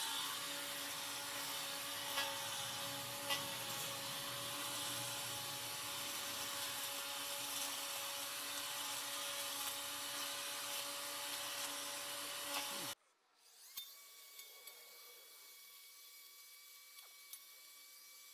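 Ryobi 40V Expandit battery trimmer running steadily through weeds, a whine over a hiss with a couple of sharp ticks. About two-thirds of the way in the sound cuts off abruptly, leaving a much fainter, higher steady whine.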